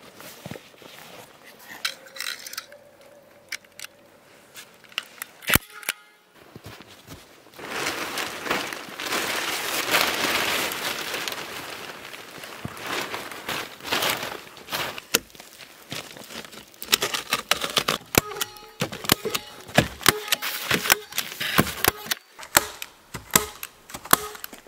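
Black plastic sheeting rustling and crinkling as it is pulled and spread over a dugout's plank roof. The crinkling is loudest about a third of the way in and turns to many sharp crackles in the last several seconds. Before that come soft rustles of a fabric backpack being unpacked.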